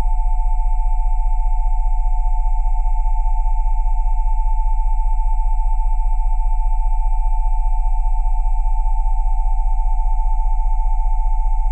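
Electronically generated pure sine tones at 727, 787 and 880 Hz sounding together over a very low 20 Hz tone. They hold steady, with a fast, even pulsing in loudness.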